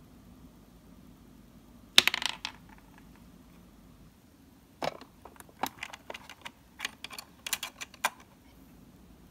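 Tiny plastic miniature toy-kitchen pieces clattering. About two seconds in comes a sharp clatter, like a small piece dropping onto a hard surface. It is followed by a run of light clicks and taps as pieces are handled inside the toy refrigerator.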